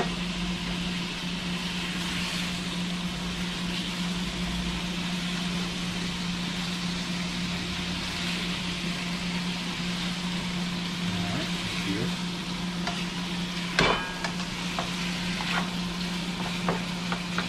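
Diced chicken sizzling in hot oil in a frying pan as it is stirred with a spatula, with a sharp clack of the spatula against the pan about fourteen seconds in. A steady low hum runs underneath.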